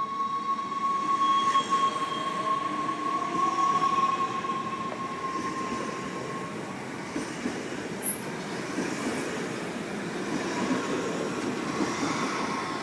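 NS Sprinter Lighttrain electric multiple unit pulling away: its traction motors whine and rise in pitch over the first few seconds over a steady high tone. The rumble of wheels on rail then grows louder as the carriages pass close by near the end.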